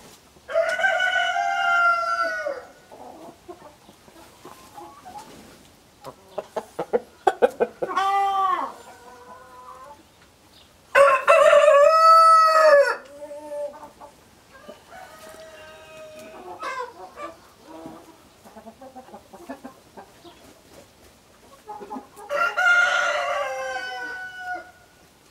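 Chickens calling: four loud, drawn-out calls of about two seconds each, the loudest in the middle, with a quick run of clucks leading into the second and a fainter call between the last two.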